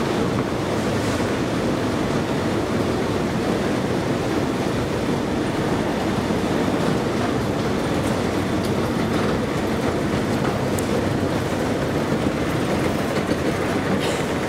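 Steady mechanical rumble of a stainless-steel KONE escalator running, heard while riding it up.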